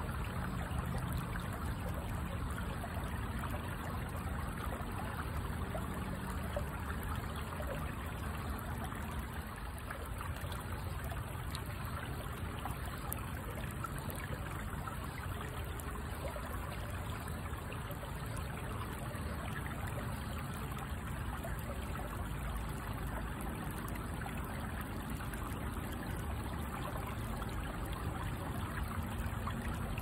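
Stream water trickling and running steadily, with no change from start to end.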